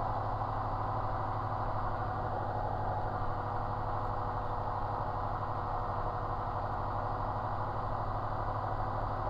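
Light aircraft's piston engine running steadily at low power, a constant even hum heard from inside the cockpit.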